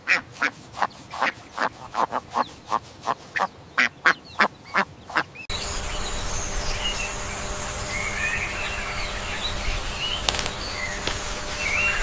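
A duck quacking over and over, about three quacks a second, for the first five seconds or so. Then it cuts off abruptly to a steady outdoor hiss and rumble with faint high chirps and a couple of sharp clicks.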